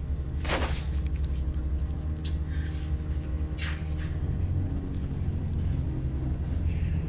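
Low, steady rumbling drone of an ominous film score, with a few brief swishes about half a second in and again near four seconds.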